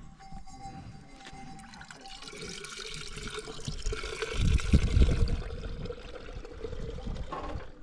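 Liquid pouring and splashing that builds up over a few seconds, with heavier splashes about halfway through.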